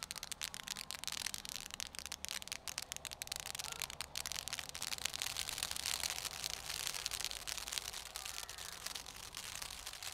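Ground firework fountain spraying sparks, with dense, continuous crackling over a steady hiss.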